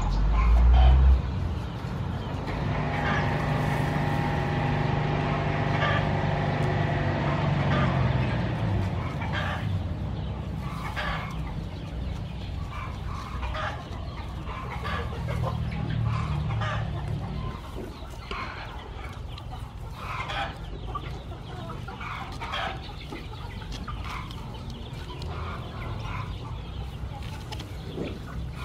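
Chickens clucking, with short rustling and snapping of lemongrass stalks being cut by hand. A steady droning sound with several tones runs for about six seconds near the start.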